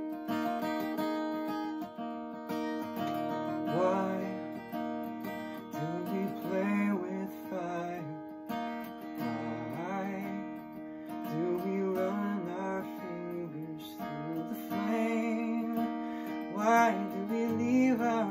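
Acoustic guitar strummed in a steady chord accompaniment, joined by a man singing from about three or four seconds in.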